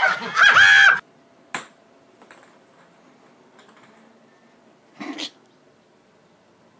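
High-pitched laughter for about the first second, cut off abruptly. Then a quiet room with a single sharp click and, about five seconds in, a brief noise.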